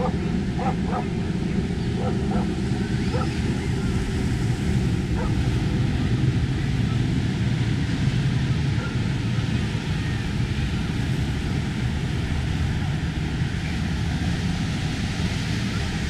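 Ocean surf breaking and washing in under a steady, loud, low rumbling noise, with a few short faint calls in the first three seconds.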